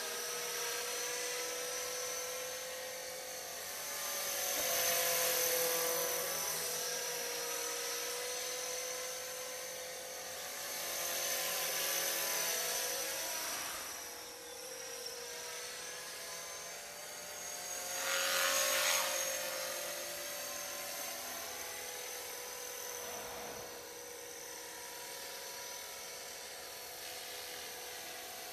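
Electric 450-size RC scale helicopter (Bell 206 Jet Ranger model) in flight: a steady high motor whine with rotor buzz. It swells louder three times as the helicopter passes close, the pitch bending with each pass, then grows fainter near the end as it flies off.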